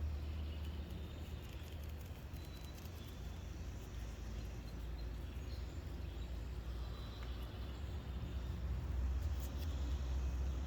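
Low rumble of a truck engine, easing off and then growing louder again near the end, with faint bird chirps over it.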